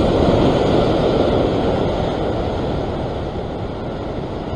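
Rough sea surging and washing over the rocks below, a steady rush of surf that eases slightly after about two seconds, with some wind on the microphone.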